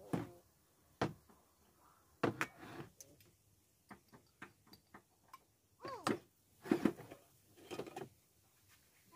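Glass jars and their glass lids clinking and knocking as they are handled and set down on a table: a string of separate sharp clinks and taps, with a brief ringing scrape about six seconds in.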